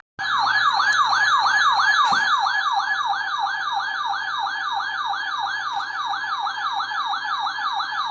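An electronic siren in a fast yelp: a tone sweeping up and down about three times a second, starting abruptly.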